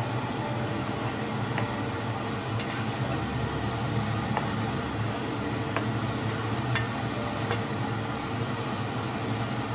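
A steady fan-like hum with an even hiss, and a few faint light clicks as a spoon stirs a braised pork stew in a pot.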